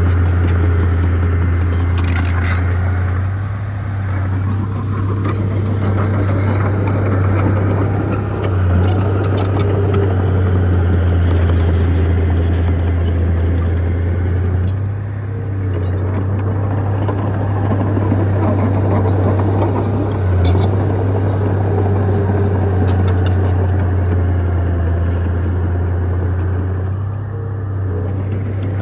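Heavy diesel engine of earthmoving machinery running steadily under load, a deep, constant hum that eases off briefly a few times. Scattered sharp clicks sound over it.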